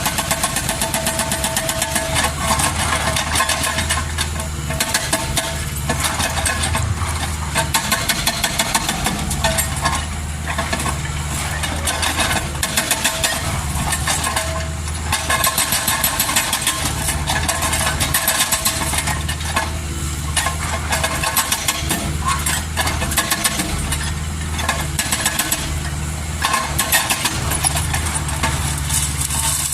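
Kobelco SK200 excavator's diesel engine running with a rapid, steady clatter, its low rumble swelling and easing every few seconds.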